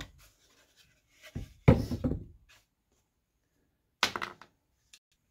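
Scroll-sawn wooden corbel pieces knocking together as they are handled and pulled apart: two wooden knocks about a second and a half in, the second the loudest, then a quick rattle of clicks around four seconds in.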